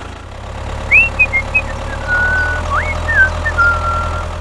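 Tractor engine running steadily with a low rumble. From about a second in, a string of high whistled chirps and slides plays over it.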